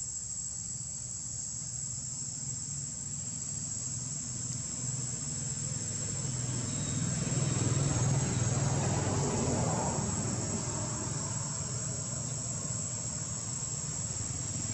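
A steady, high-pitched insect chorus keeps up without a break. A low engine rumble from a passing motor vehicle swells in the middle, loudest about eight seconds in, then eases off.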